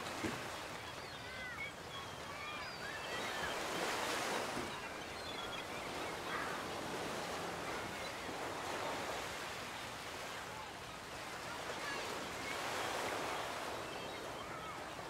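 Ocean surf washing onto a beach, rising and falling in slow swells every few seconds. Short chirping bird calls come in over it during the first few seconds.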